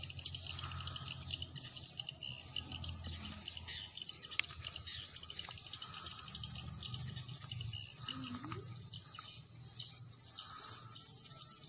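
Edible-nest swiftlets twittering: a dense, continuous chatter of short high chirps and clicks.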